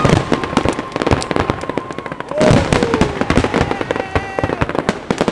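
Fireworks display bursting in a dense, rapid run of crackles and bangs.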